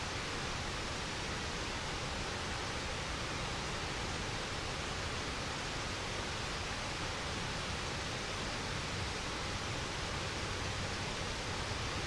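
Waterfall: a steady, unbroken rush of falling water that holds an even level throughout.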